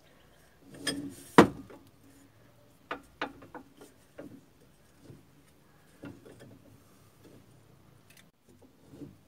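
Irregular metallic clicks and knocks from a socket-extension stack and universal joint turning the threaded rod of a homemade bushing press, as a rubber silentbloc is pressed into the upper control-arm mount of a Jeep Dana 30 front axle. The loudest is a sharp knock about a second and a half in.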